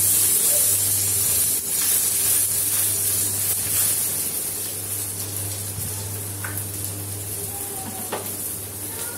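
Bread spread with a semolina (rava) mixture sizzling in a little oil on a hot non-stick tawa, semolina side down. The hiss is loudest early, as the slice is pressed flat, and slowly eases off, with a steady low hum underneath.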